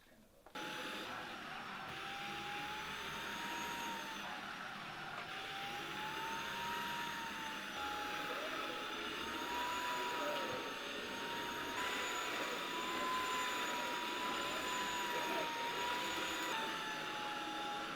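Vacuum cleaner running: a steady motor roar with a whine that slowly wavers up and down in pitch, starting abruptly about half a second in.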